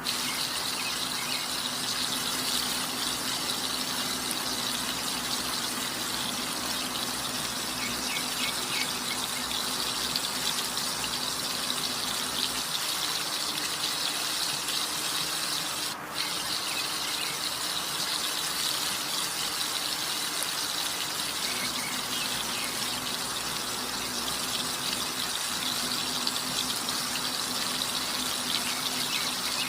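Chicken drumsticks deep-frying in hot oil: a steady, dense sizzle, with a faint low hum underneath that changes pitch twice.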